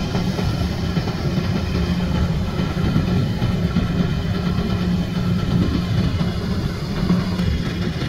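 Kubota crawler combine harvester's diesel engine and threshing machinery running at steady speed while harvesting rice: an even, unchanging drone with a strong low hum.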